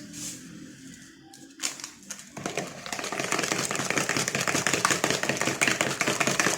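Hand whisk beating cake batter in a bowl: a few light clinks, then from about two seconds in a fast, even clatter of the wires against the bowl.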